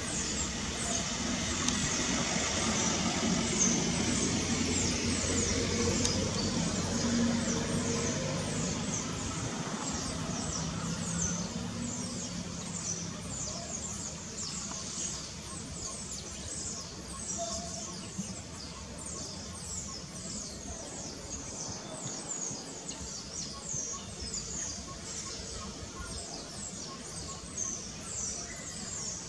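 Steady high-pitched chirping, many short falling chirps a second, from small animals or birds. A low hum sounds under it in the first half and fades out about halfway through.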